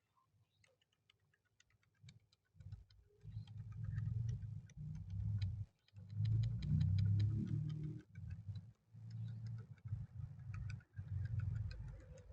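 Mechanical keyboard switches being pushed one by one into the keyboard: rapid, dense small clicks and snaps. About two and a half seconds in, low bumping handling noise against the board joins them.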